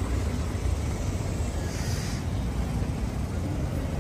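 Steady low outdoor background rumble with no distinct events, with a faint brief hiss about two seconds in.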